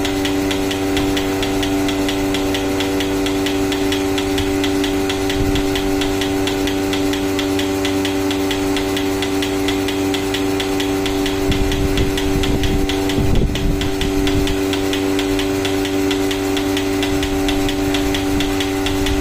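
Portable milking machine running with its teat cups on a cow's teats while milk flows. The vacuum pump motor hums steadily over a regular fast ticking of the pulsator, with a brief low knocking a little past the middle.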